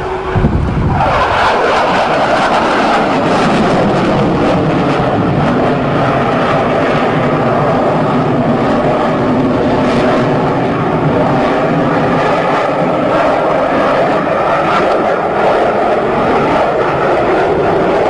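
Low-flying fighter jet: a loud roar comes in with a downward sweep in pitch about a second in, then holds as a steady jet engine roar with faint tones running through it.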